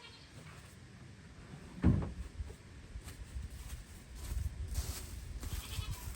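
A single dull thump about two seconds in, followed by an uneven low rumble with faint rustling.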